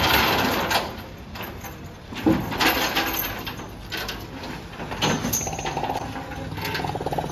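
Street noise with several knocks and scrapes, and a vehicle engine running.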